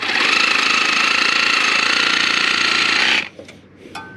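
A handheld power tool running steadily with a high whine for about three seconds, then stopping.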